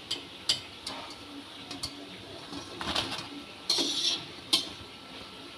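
Wire-mesh skimmer clinking and scraping against an aluminium kadai as fried mango fritters are lifted out of the hot oil, a handful of irregular sharp clinks with a short scrape a little under four seconds in. The oil sizzles faintly underneath.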